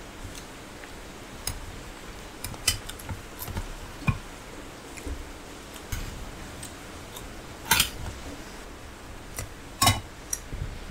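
Metal serving spoon clinking and scraping against stainless-steel plates and bowls in scattered sharp clicks, the two loudest clinks coming near the end.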